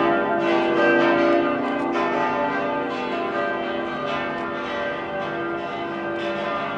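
Church bells ringing in the tower: several bells struck one after another, their long ringing tones overlapping.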